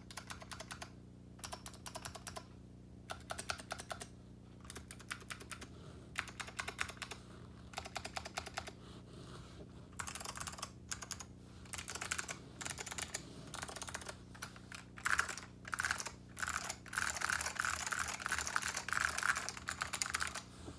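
Typing on a TX87 mechanical keyboard with SKCM Blue Alps clicky switches on an aluminium plate and AEK keycaps: runs of rapid, deep clicks in bursts with short pauses. The typing gets louder and denser about two-thirds of the way through.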